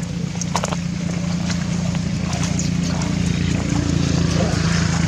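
A motor engine running steadily with a low hum, growing louder toward the end, with a few sharp clicks in the first second.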